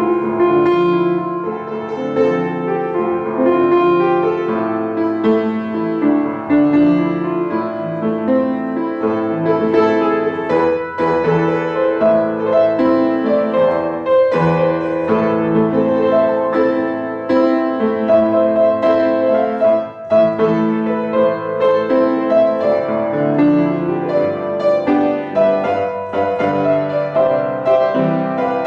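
Upright piano played with both hands: a single-note right-hand melody over a repeating left-hand accompaniment pattern. It plays continuously, with one brief break in the phrasing about two-thirds of the way through.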